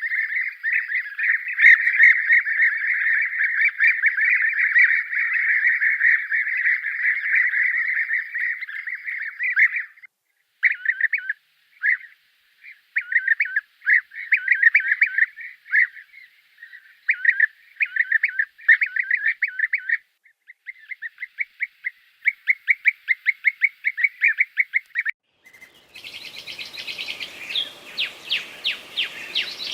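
Bird calls: a dense, continuous chatter of many calls for about ten seconds, then short runs of rapid repeated notes with gaps between them. About four seconds before the end the recording changes to higher-pitched calls over outdoor background noise.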